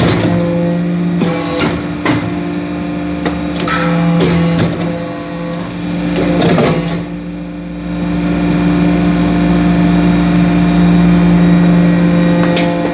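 Hydraulic brass-chip briquetting press running: a steady machine hum made of several fixed tones, with scattered sharp clicks and knocks. A deeper low rumble joins about halfway through.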